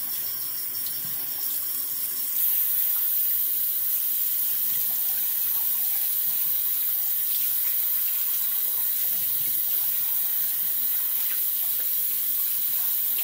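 Bathroom sink tap running steadily into the basin, turned up a little about two seconds in.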